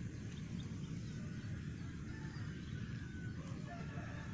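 Outdoor ambience: a steady low rumble of wind on the microphone with a faint high hiss, and a few faint short bird calls.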